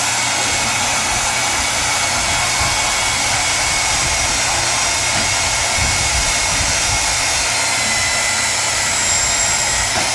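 Electric power tool running steadily under load with a high whine, cutting through the steel frame tubing of a small quad.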